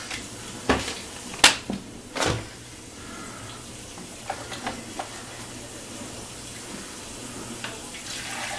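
Kitchen items being handled: a few sharp knocks and clatters in the first two and a half seconds, then lighter clicks about four to five seconds in, over a steady faint hiss.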